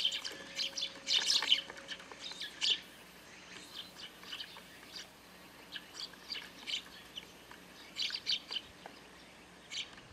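Eurasian tree sparrows chirping: a flurry of short chirps over the first few seconds, then scattered chirps, with another quick cluster about eight seconds in.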